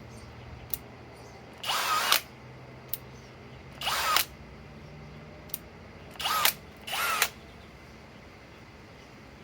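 Master Force brushless hammer drill run in four short trigger pulls of about half a second each, its motor whining up briefly each time. Single sharp clicks come between the runs.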